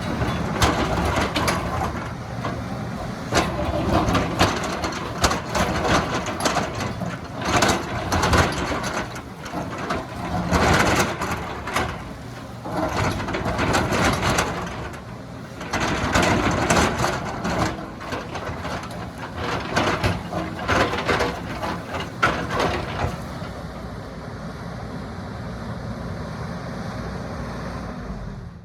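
Excavator's diesel engine working under load, with repeated scrapes, knocks and crunches from the bucket digging into soil and rock. Near the end the knocks stop and the engine runs on steadily.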